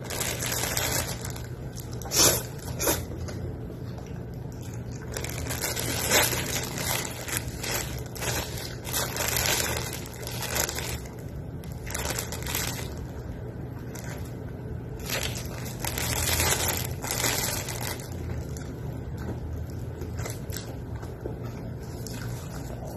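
Close-up eating of pancit noodles: forkfuls taken and chewed, with the clear plastic bag around the container crinkling and crackling in irregular bursts as it is handled. A steady low hum runs underneath.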